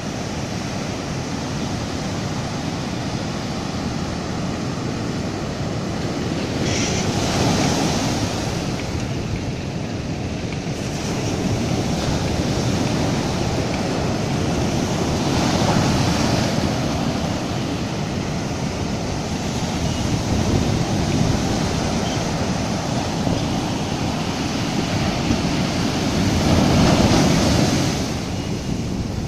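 Sea surf breaking and washing up a sandy beach, then draining back: swash and backwash. It is a steady rush of water that swells louder four times as waves come in.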